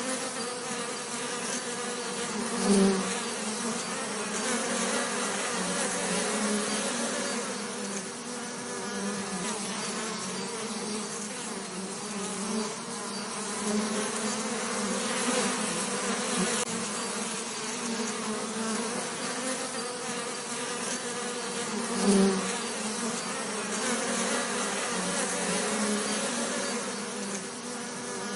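Bees buzzing in a continuous, wavering low drone, with two brief louder swells, one about three seconds in and one a little past twenty seconds.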